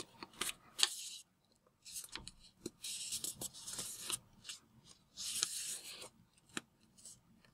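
A sheet of origami paper being folded and creased by hand: three longer stretches of dry rubbing as fingers run along the folds, with short paper crinkles and clicks in between.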